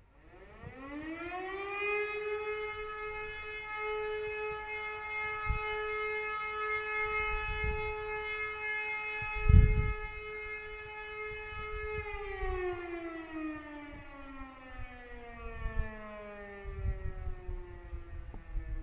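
E57 electromechanical civil defence siren sounding one blast: it winds up in rising pitch, holds a steady tone for about ten seconds, then winds down with falling pitch. Strong wind buffets the microphone with low rumbles, one loud gust about halfway through.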